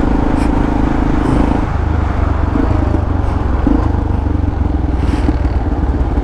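Yamaha XT600E's single-cylinder engine running through an old aftermarket Coyote exhaust while riding. About a second and a half in the engine note drops to a lower, steady pitch.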